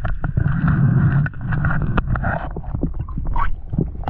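Underwater sound from an action camera in a waterproof housing: a low muffled rumble of moving water, strongest about half a second to a second in, with many irregular clicks and knocks as the diver handles the speared fish.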